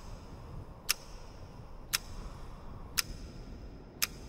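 Clock ticking, one sharp tick about every second, four in all, over a steady low rumble.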